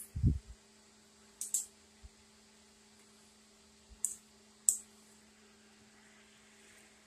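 Handling noise from a handheld camera: a low thump just after the start, then a few short scratchy clicks, over a faint steady electrical hum.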